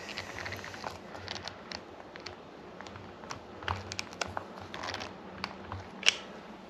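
Hands handling a rubber RC truck tire on a three-piece wheel during gluing, giving scattered small clicks and crinkly ticks, with one sharper click about six seconds in.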